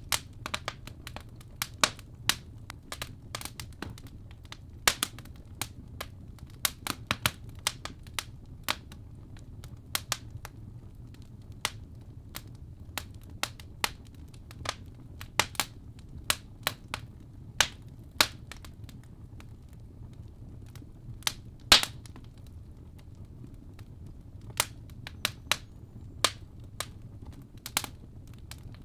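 Wood fire crackling in a fireplace: irregular sharp pops and snaps, several a second at times and one louder pop a little over 20 seconds in, over a steady low rumble.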